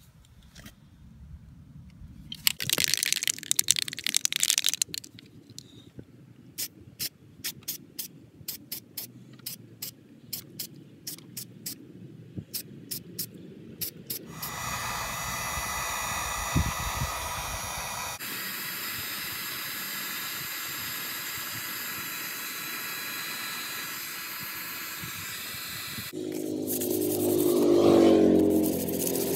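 An aerosol spray can's mixing ball rattling with sharp clicks, about three a second, as the can is shaken, then about ten seconds of steady spray hiss. Near the end, a sanding block scraping by hand over the primed steel door sill.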